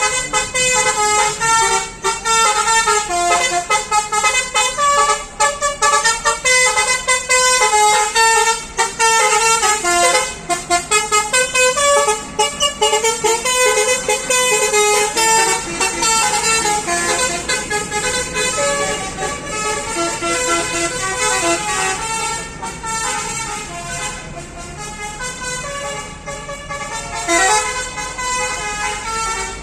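Telolet basuri musical bus horns playing tunes, many at once: a loud, dense jumble of short overlapping horn notes that keep changing pitch several times a second.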